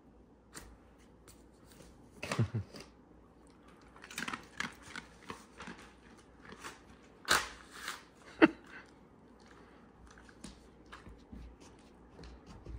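Quiet, scattered crunches, clicks and rustles of a dog taking and chewing a small treat and of paper cue cards being handled, with a sharper knock about seven seconds in.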